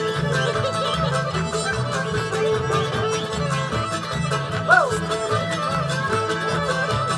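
Old-time string band playing an instrumental stretch, a fiddle lead over guitar, mandolin and upright bass keeping a steady beat. A short loud whoop rises and falls a little past halfway.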